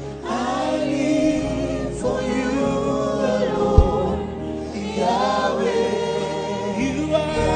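Gospel worship music: a choir singing long, sustained notes that glide between pitches, with a single low thud about halfway through.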